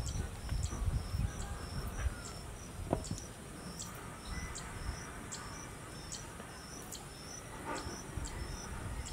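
Insect chirping steadily in the background, a short high chirp about twice a second, with a single light knock about three seconds in.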